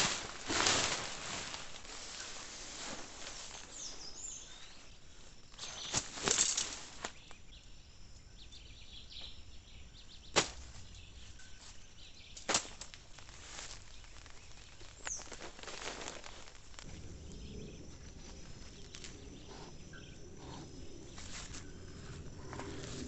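Scattered rustling and a handful of single sharp clicks or knocks over a faint outdoor background, as of a person moving about and handling gear.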